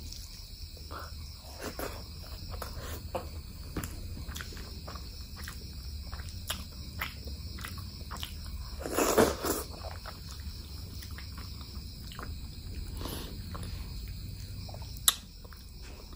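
Close-miked eating sounds: chewing with short, wet mouth smacks and clicks as mutton curry and rice are eaten. There is one louder wet burst about nine seconds in and a sharp click near the end, over a steady high-pitched background hiss.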